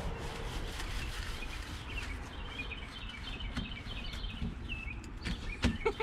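Wild birds chirping in the background over a low steady rumble, with a few sharp clicks near the end.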